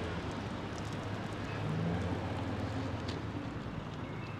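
City street ambience: a steady low traffic hum under an even haze of background noise, with a few faint clicks.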